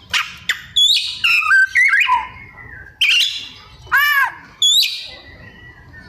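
Oriental magpie-robin (kacer) singing a varied string of short, loud phrases: sharp rising whistles, quick chirps, an arched note that rises and falls, and some harsher notes, with brief pauses between them. It is the mimicry-filled ('isian') song that kacer keepers prize.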